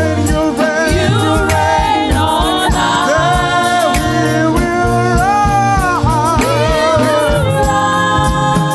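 Gospel praise song: a worship team singing over a band, with a bass line and a steady beat.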